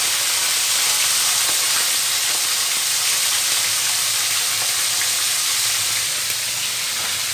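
Pieces of yellowfin tuna shallow-frying in hot oil in a wok, with a steady, dense sizzle.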